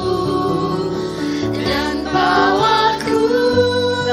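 Worship song: a singer's voice holding and gliding between notes over sustained instrumental chords.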